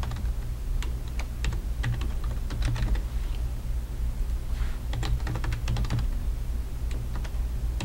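Typing on a computer keyboard: runs of quick keystroke clicks as an email address is entered twice, with a short pause a little before halfway, over a steady low hum.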